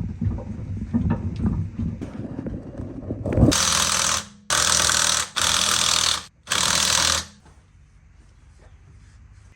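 Rattling and knocking, then a power tool run in four bursts of about a second each, the last cutting off sharply.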